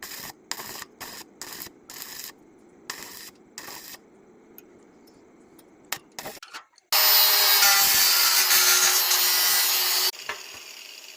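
About eight short, evenly spaced rubbing strokes on metal. Then, after a few clicks, a handheld power tool runs loud and high-pitched on stainless steel railing parts for about three seconds and cuts off suddenly.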